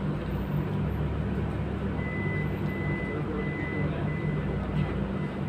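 Steady low mechanical hum, with a faint thin high whine joining about two seconds in.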